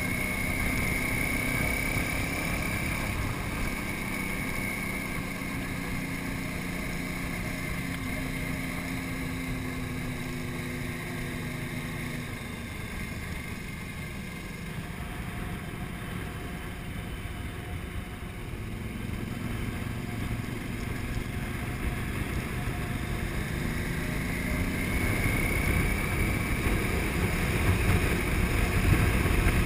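KTM 950 Super Enduro's 950cc V-twin engine running under way on a gravel road, with wind noise on the microphone. It eases off and quietens through the middle, then builds louder again near the end.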